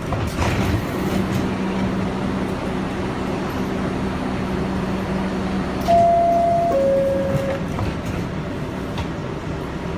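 R62A subway car door chime: a two-note descending ding-dong about six seconds in, the warning that the doors are about to close, over the car's steady hum. A short knock about half a second in.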